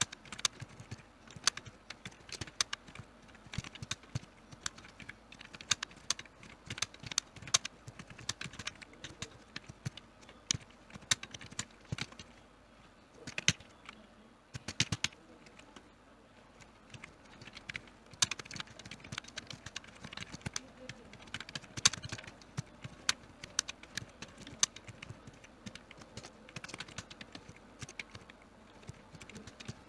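Computer keyboard typing: rapid, irregular key clicks that go on without a break, thinning briefly about halfway through.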